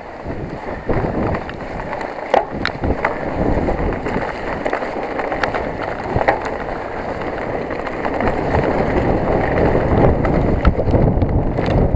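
Mountain bike (a Specialized Enduro 29) descending a rough trail: wind rushing over the microphone and tyres rolling on dirt, with scattered sharp knocks and rattles from the bike. It grows louder over the last few seconds.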